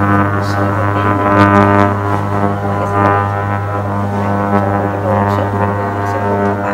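Background music with a low, steady drone and long held notes.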